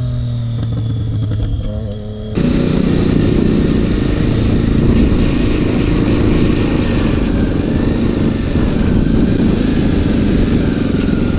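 Motorcycle engine heard from the rider's helmet camera, first a steady hum while cruising, then, about two seconds in, a sudden switch to a louder, rougher engine and road noise of a second motorcycle riding in city traffic.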